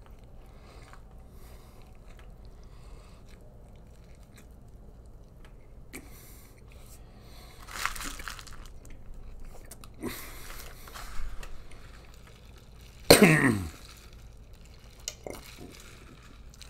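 A man chewing and working down a large mouthful of burger, with wet mouth noises that grow louder in bursts after the first few seconds. About three-quarters of the way in comes a loud, brief throat sound that falls in pitch, like a cough or a burp.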